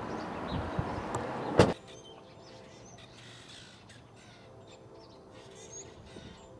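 A car door shuts with one loud thump about a second and a half in, and the outdoor noise cuts off with it. Birds chirp faintly after it.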